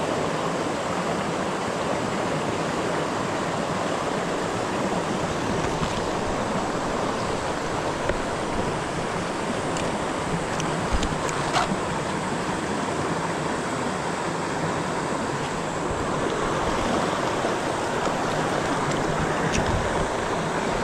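River water rushing steadily, an even wash of flowing-water noise close to the microphone, with a few faint clicks about halfway through.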